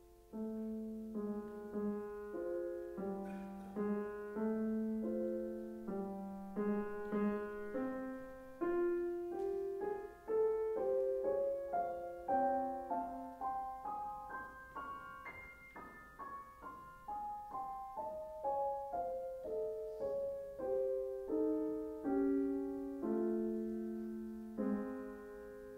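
Yamaha concert grand piano played solo: a steady succession of struck notes and chords, with a passage that climbs higher in pitch about halfway through and then falls back.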